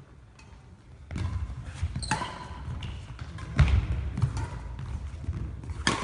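Badminton doubles rally: about five sharp racket strikes on the shuttlecock, starting about a second in, with the players' feet thudding on the wooden hall floor between them.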